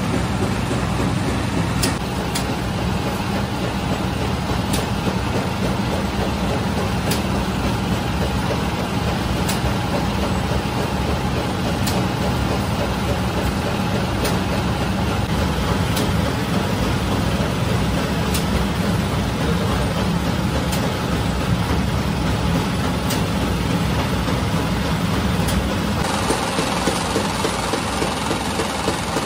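Automatic bread-baking machine running: a steady mechanical hum and rumble, with a sharp click about every two seconds. The sound shifts a little near the end.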